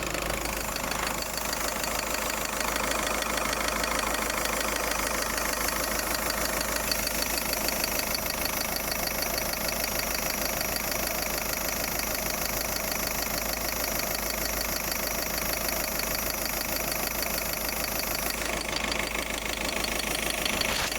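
An engine idling steadily, with a hiss heard over it.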